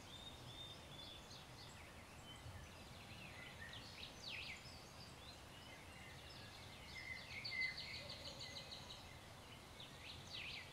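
Faint birds calling in the background: scattered high chirps and quick down-sweeping calls, with a rapid run of repeated notes about seven seconds in.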